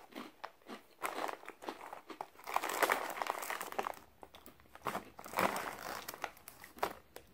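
Crinkly plastic corn-chip bag rustling and crackling as a hand rummages inside it for chips, loudest in two spells near the middle and about two-thirds through, with crunching of corn chips being chewed.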